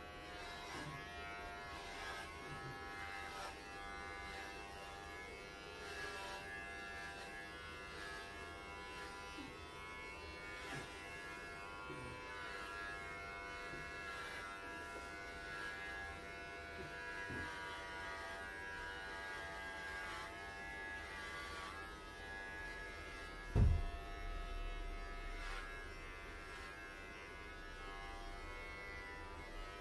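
Cordless electric pet clipper buzzing steadily as it shaves a Welsh Corgi's coat down short. A single low thump stands out about three-quarters of the way through.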